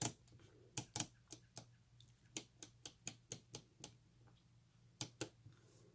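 Whole-numbers frequency knob of a Learjet 25 DME control head being turned step by step, its detent clicking a dozen or so times at an uneven pace, then a pause and two more clicks about five seconds in.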